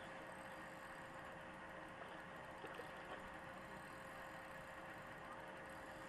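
Faint, steady hiss with a constant low hum under it, and a few faint clicks between two and a half and three seconds in.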